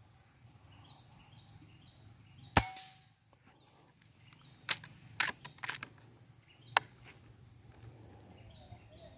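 A single shot from a suppressed PCP air rifle, a sharp crack with a brief ring, fired about two and a half seconds in. About two seconds later comes a quick run of sharp clicks.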